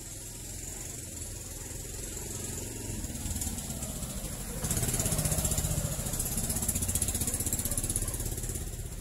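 A small engine running with a rapid pulsing beat. It grows suddenly louder about four and a half seconds in and eases off near the end.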